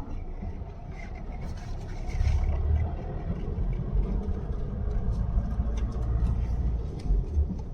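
A car driving slowly, its engine and the road making a steady low rumble, with scattered light knocks and rattles.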